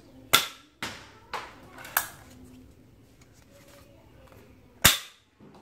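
Spring-plunger toy Desert Eagle foam-dart pistol firing twice: a sharp snap about a third of a second in and another near the end. Quieter clicks in between come from the slide being pulled back to prime it.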